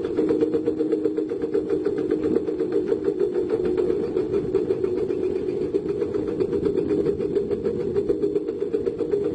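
Diesel engine of heavy construction equipment running steadily at a constant speed, with an even, fast pulse.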